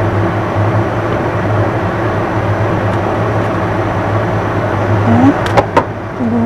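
Steady rumbling hum of a gas burner under a pot of water boiling pempek fish cakes. Near the end come two sharp knocks, the wooden stirring spoon striking the pot.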